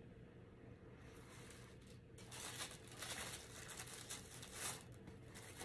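Faint rustling and crinkling of packaging paper in a box as hands sort through it and draw out a pair of baby socks. It is irregular and thickest in the middle.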